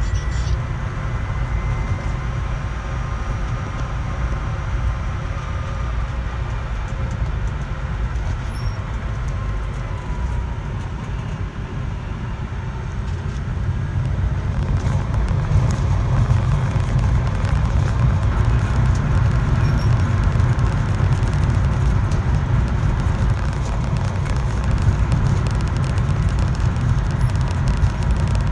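Car running with a steady low rumble that grows louder about halfway through, with a faint high whine over it. This is recorded as the abnormal noise ('異音') the owner is documenting.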